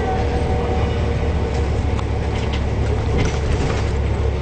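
Neoplan Centroliner double-decker bus running along at speed, heard from inside the cabin: a steady low rumble of engine and road noise, with a faint whine fading out about a second in and scattered light clicks and rattles in the middle.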